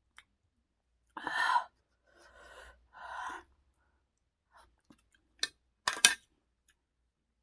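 A person sighing and breathing out heavily three times, then a few short sharp clicks.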